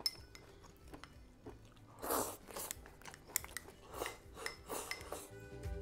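A person eating from a ceramic bowl with chopsticks: chewing and mouth noises in short bursts, with light clicks of the chopsticks against the bowl.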